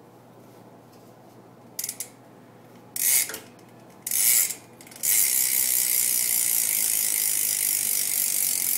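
Rear hub of a 2013 Haro BMX bike ratcheting as the wheel freewheels, its pawls clicking: three short bursts, then loud continuous clicking from about five seconds in.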